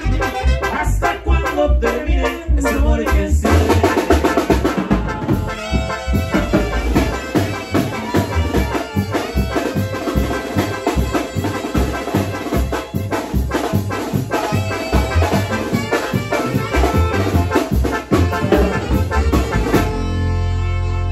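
Live band playing a dance tune on two alto saxophones, electronic keyboard and snare drum, with a steady beat. The music stops about a second before the end, leaving a steady low hum.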